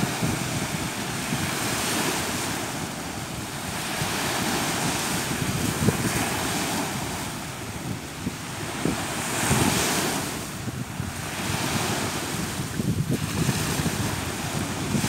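Small waves breaking and washing up on a sandy shore, the surf swelling and fading every three seconds or so. Wind buffets the microphone with a low rumble.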